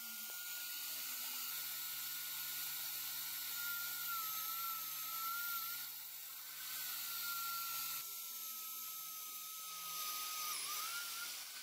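Water-cooled diamond core drill on a rig stand cutting into a concrete stair, its motor running with a steady high whine that wavers and sags slightly under load, over a hiss.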